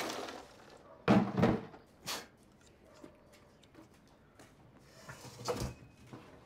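Household handling sounds: a loud thump about a second in, a lighter knock shortly after, and another thump near the end, like a cupboard or door being shut.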